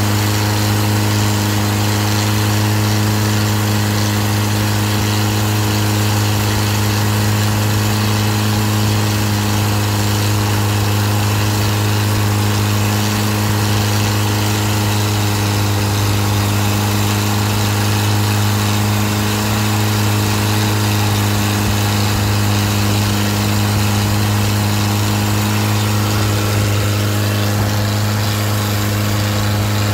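Long-tail boat's exposed stern-mounted car engine running steadily at cruising speed through a short open exhaust pipe, a loud, even drone that holds one pitch throughout.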